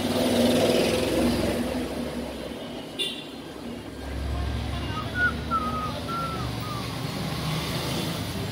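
Street traffic: motor vehicles running and passing, with a low rumble that swells about four seconds in. Faint short whistle-like tones come midway.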